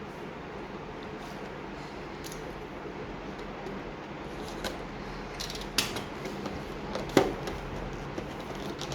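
Packaging of a desktop processor being opened by hand: a few sharp clicks and handling noises in the second half, over steady room noise.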